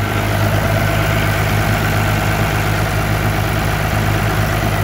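Caterpillar 3406B inline-six diesel idling steadily, heard up close in the open engine bay.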